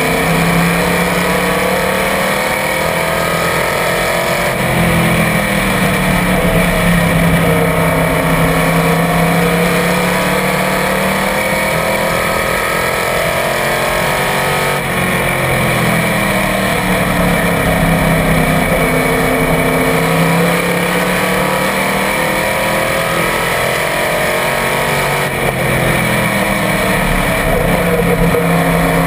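Small-block V8 of a Small Block Supermodified race car heard from on board at racing speed. Its engine note falls away into the corners and climbs again down the straights, about every ten seconds.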